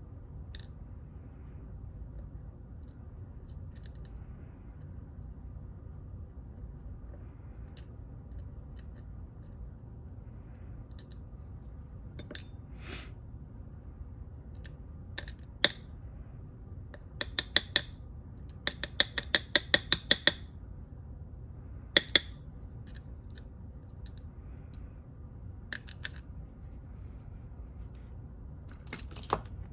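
Small metal lock parts and tools clicking and clinking as a Mul-T-Lock padlock is taken apart. Scattered single clicks, then a quick run of about a dozen a little past the middle, then a sharp double click.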